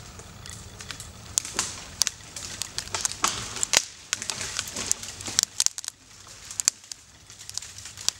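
Irregular sharp clicks and pops from a poplar's felling hinge as its wood fibres crack under bending, with the loudest snap a little before the middle. The hinge is straining at about 20 degrees of lean but has not yet failed.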